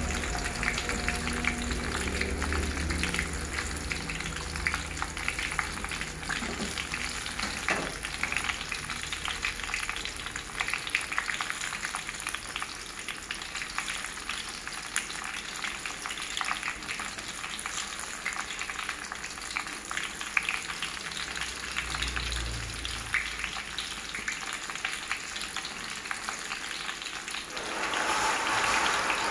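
Batter-coated banana fritters deep-frying in hot oil in a wok: a steady crackling sizzle with many small pops. The sizzle swells briefly near the end.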